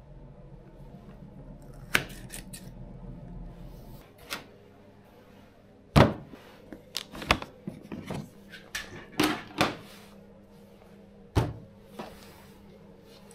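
Scattered sharp knocks and clicks of a soil blocker and trays being handled while soil blocks are pressed out, the loudest about six seconds in. A low steady hum lies under the first few seconds.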